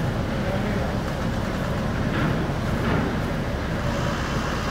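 Steady low rumble of the car ferry's engines as it berths.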